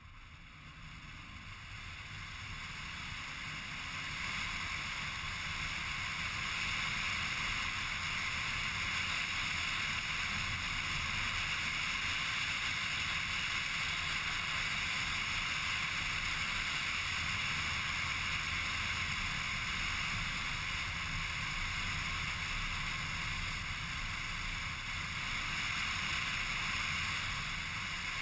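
Steady road, tyre and wind noise of a car driving along a sealed country road, heard from inside the car with the engine running underneath. It fades in over the first few seconds, then holds even.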